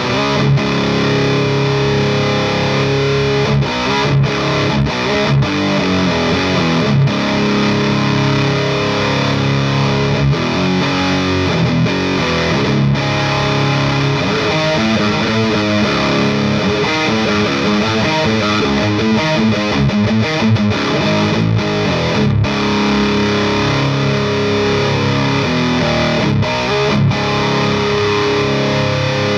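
High-gain distorted electric guitar played through a GupTech Evil Donkey preamp pedal into an Orange Pedal Baby power amp: held, ringing chords at the start and again about 22 seconds in, with a long stretch of quick, choppy riffing in between.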